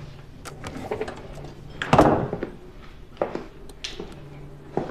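Refrigerator door being handled and shut, with a dull thud about two seconds in and a few lighter knocks and clicks, over a faint steady low hum.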